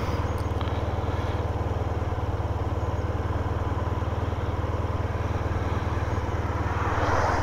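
Motorcycle engine idling steadily, a low even pulse. Near the end a passing vehicle swells over it.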